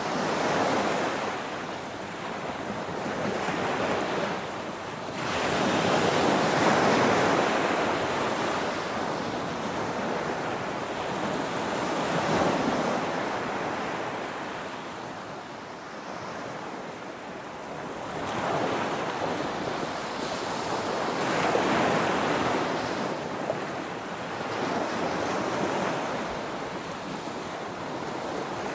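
Small waves breaking and washing up a sandy beach: a surge of surf every few seconds that swells and then fades, the biggest one about a quarter of the way in.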